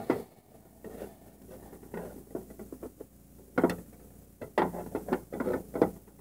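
Light plastic clicks and knocks from toys being handled, with a cluster near the end as the toy dollhouse's front door is pushed open.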